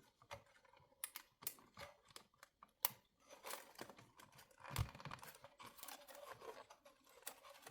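Faint, irregular small plastic clicks and rustling from hands handling a circuit board and pushing a small ribbon cable into its connector slot.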